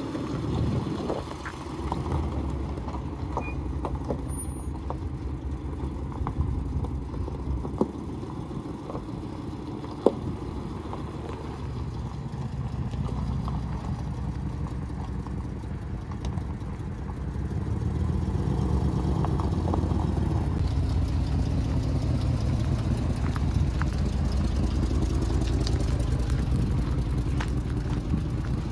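2012 Ram 1500 pickup's engine idling steadily, a little louder from about two-thirds of the way through, with a couple of sharp clicks.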